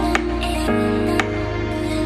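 Background music: held chords that change about a third of the way in, over a light beat.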